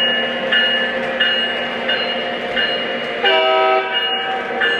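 Lionel O scale Union Pacific Genesis switcher's onboard sound system: a steady diesel engine hum with the locomotive bell ringing about one and a half strikes a second, then a horn blast about three seconds in that drops out briefly near the end.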